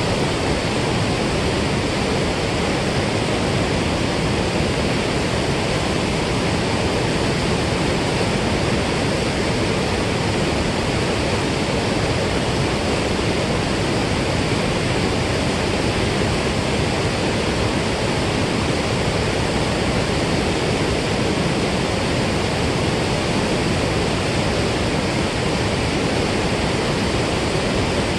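Steady, unbroken rush of water pouring through the lake's spillway below the dam.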